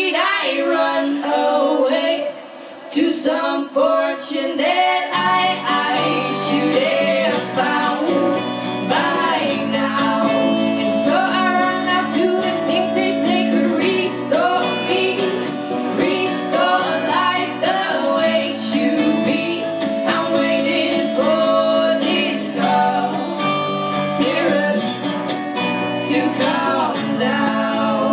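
Music: female voices singing over instrumental backing, with lower accompaniment notes coming in beneath about five seconds in.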